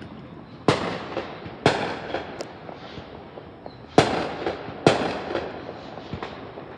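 Fireworks going off: four loud, sharp bangs at uneven intervals, each fading away over about a second, with a fifth bang right at the end.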